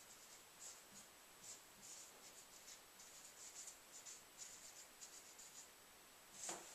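Marker pen writing on a whiteboard: faint, irregular short scratches of the felt tip on the board, several a second, as words are written. A brief louder sound comes near the end.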